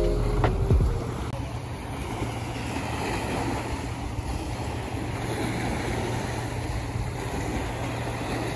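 Small waves washing against the pontoon and shore in a steady wash, with wind rumbling on the microphone. The last notes of background music die away within the first second.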